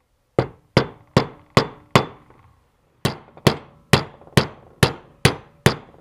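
Hammer tapping a metal drift to drive the governor pin into a Honda GX160's aluminium crankcase: five quick taps about two and a half a second, a pause of about a second, then seven more, each tap ringing briefly.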